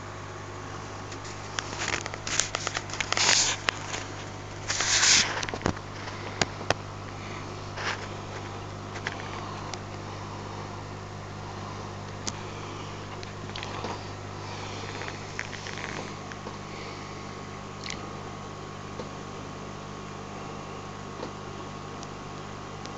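Steady low electrical hum of running aquarium equipment. Over it, a cluster of sharp clicks and short rustles in the first several seconds, then a few scattered clicks.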